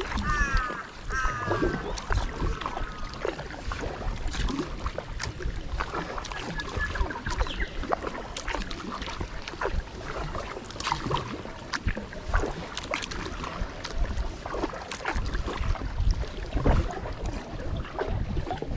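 Kayak paddle strokes dipping and splashing with water dripping off the blades, over wind rumble on the microphone. In the first few seconds a bird calls several times in quick succession.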